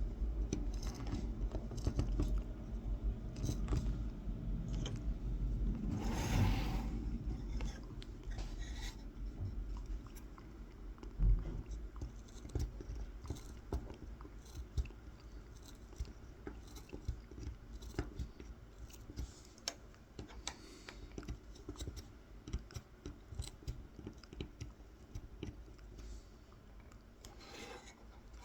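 A kolrosing knife's tip cutting lines into a carved wooden honey dipper: a run of small crisp clicks and scratches as the blade is stabbed along the line, with a longer rasp about six seconds in.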